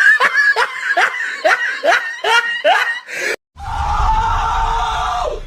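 Meme laugh clip: a wheezy, squeaky snicker, a string of short rising breaths about three a second. It cuts off abruptly, and a long held high-pitched vocal cry follows over a low rumble, sliding down at the end.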